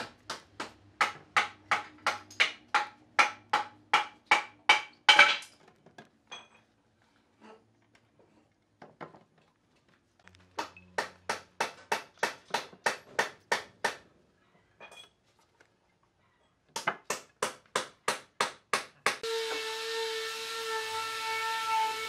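Three quick runs of hammer blows on wood, about four a second, fixing planks in place. About three seconds before the end the blows give way to an air spray gun spraying finish, a steady hiss with a whistling tone.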